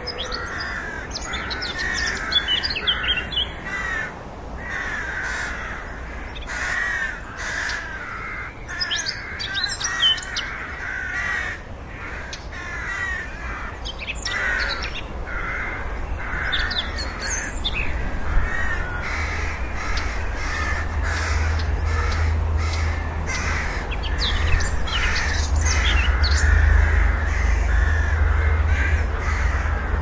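Rooks cawing over and over, harsh calls following one another with short gaps, with fainter higher chirps from smaller birds now and then. A low rumble builds up in the second half.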